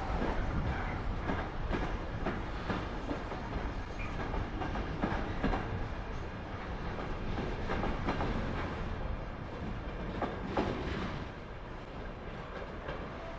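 Loaded container flat wagons of a freight train rolling past, wheels clacking irregularly over the trackwork above a steady rumble. The sound drops away about eleven seconds in as the last wagons go by.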